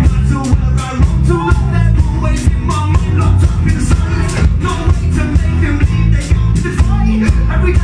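A band playing rock music, with a steady drum beat under a singing voice.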